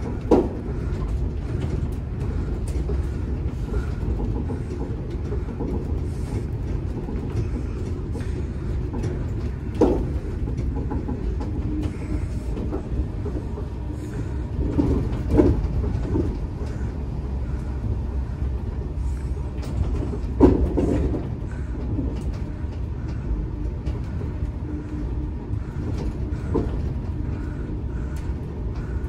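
Cabin sound of a Chiba Urban Monorail 0 series suspended monorail car running between stations: a steady low rumble, with four short thumps spread through it.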